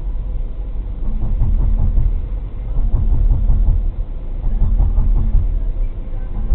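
Low, steady rumble of a car driving at about 55 km/h: road and engine noise heard inside the cabin through a dashcam microphone.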